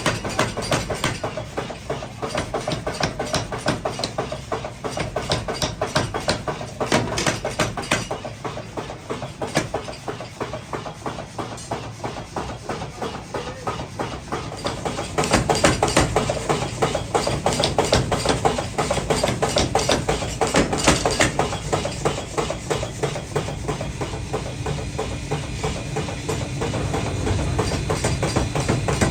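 Rapid, regular hammer blows on iron as tongs are forged, getting louder about halfway through.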